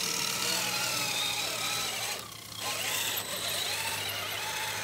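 Electric motors and gear trains of RC scale crawler trucks whining as they are driven over rough ground, the pitch rising and falling with the throttle and dipping briefly about two seconds in.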